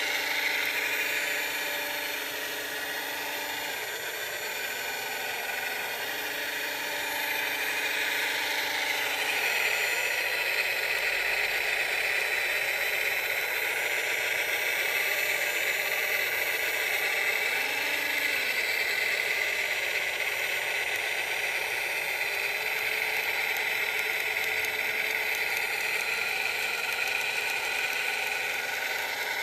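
Radio-controlled scale CAT wheel loader working: a steady high whine from its electric motors, with a lower hum that cuts in and out several times as it drives and works the bucket.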